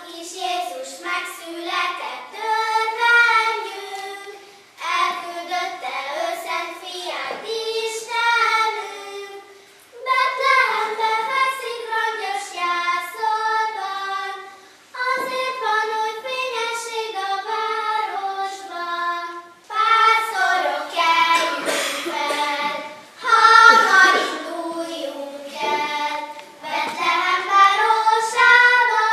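Group of children singing a Christmas nativity-play song together, in phrases that pause briefly about every five seconds.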